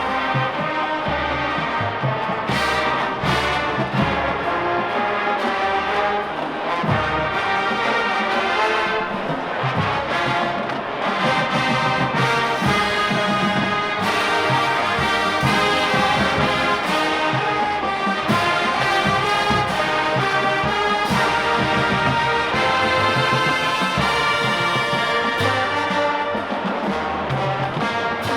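A marching band playing: trombones and trumpets carry the tune over a steady beat of bass drums.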